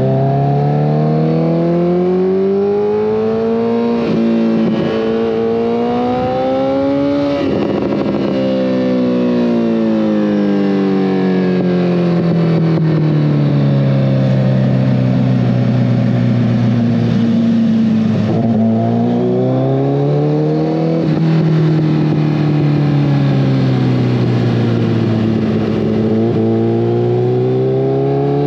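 2014 Kawasaki ZX-14R's inline-four engine through a full Brocks Alien Head 2 exhaust, pulling up through the revs and easing off again several times. The pitch climbs over the first few seconds, then falls in a long slow drop, and rises and falls twice more, with short breaks between the climbs.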